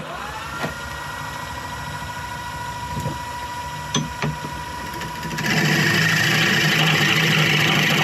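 A wood lathe motor starts with a rising whine that settles into a steady hum, with a few light knocks. About five and a half seconds in, a gouge starts cutting the olive ash bowl, adding a louder, rough sound of cutting wood over the motor.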